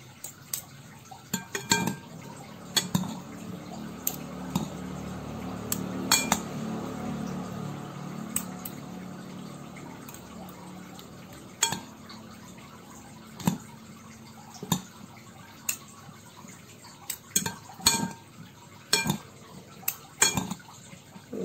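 Metal salad utensils clinking irregularly against a large bowl as a salad is tossed, about a dozen sharp clinks. A low steady hum sits underneath for the first half.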